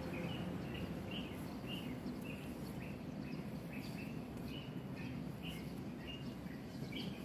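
A bird chirping over and over, short high chirps about twice a second, over a low steady hum.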